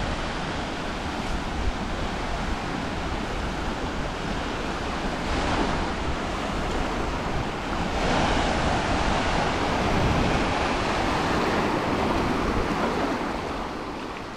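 Surf washing onto a beach, a steady rush of waves with wind buffeting the microphone. It swells louder from about eight seconds in and begins to fade near the end.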